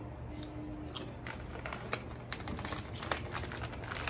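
Potato chips being bitten and chewed close to the microphone: a run of sharp, irregular crunches.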